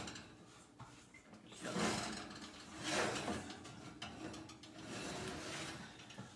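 Metal loaf pans scraping and sliding on an oven's wire rack as they are shifted by hand with a potholder, in a few short scrapes about two, three and five seconds in.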